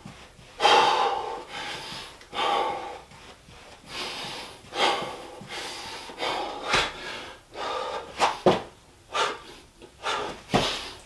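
A man breathing hard from exertion, in heavy puffs and gasps every second or two, while running in place. Several sharp thuds come in the second half as his feet and hands hit the floor going down into a burpee.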